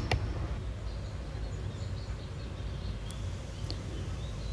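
Steady low background rumble with faint bird chirps and a few light clicks.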